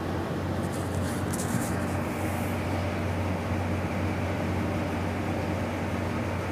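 Steady low hum of an LNG carrier's machinery heard on deck during its sea trial, over an even rushing noise. Faint brief rustles on the microphone about a second in.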